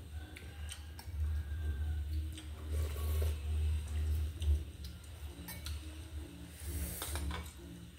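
Someone eating noodle soup: soft slurps and small clicks of a spoon and chopsticks against a ceramic bowl, over a steady low hum.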